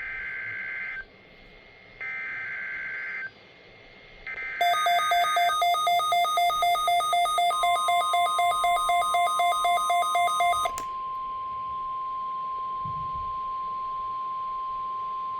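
NOAA Weather Radio SAME data signal for the Required Weekly Test: three one-second bursts of a shrill two-pitch digital warble. A loud electronic alarm follows, beeping about four times a second, and then the steady 1050 Hz weather-radio warning tone.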